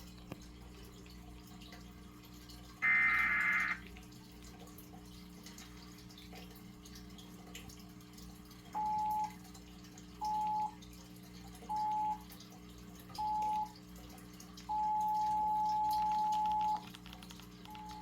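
Electronic alert-system tones over a low steady hum: one loud, warbling data burst about a second long, three seconds in. From about nine seconds, four short beeps at one pitch, then a two-second tone, and another tone starting near the end.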